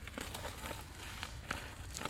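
A scattered series of short light taps and rustles, about six in two seconds, the sharpest about one and a half seconds in, like small feet or hands moving over a hard or littered surface.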